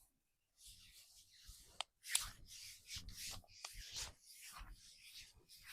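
Hands rubbing over a back in quick repeated massage strokes, about two a second, with a couple of sharp clicks among them.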